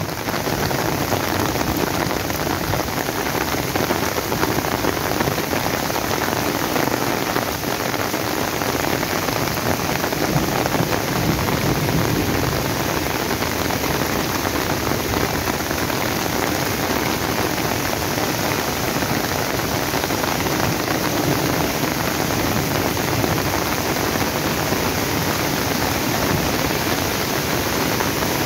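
Steady roar of a muddy mountain stream in flood, rushing and tumbling over large boulders, mixed with the hiss of falling rain.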